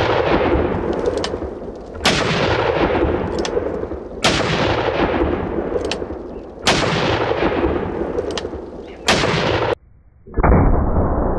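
Magnum Research BFR revolver chambered in .30-30 Winchester firing: four sharp, loud shots about two and a half seconds apart, each trailing off in a long rumbling decay, with faint clicks between them. Near the end comes a duller, deeper boom.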